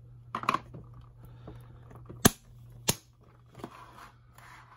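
Hard plastic toy parts clicking and snapping as a computer-panel piece is pushed onto a plastic display stand, with two sharp snaps a little past two seconds in, about two-thirds of a second apart, and lighter clicks around them.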